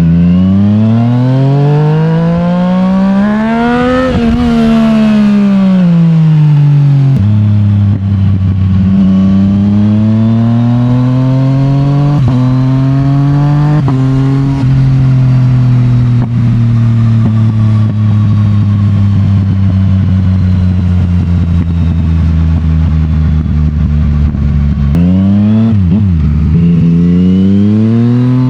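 Yamaha MT-09's CP3 three-cylinder engine breathing through a full Akrapovic titanium exhaust, pulling up through the revs with sudden drops in pitch at the gear changes. It runs evenly with slowly falling revs through the middle, then the revs dip and climb again near the end.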